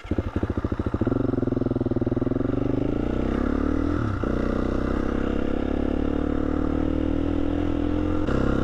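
KTM 350 enduro motorcycle engine pulling away from low revs and revving up under acceleration, with a gear change about four seconds in and another near the end.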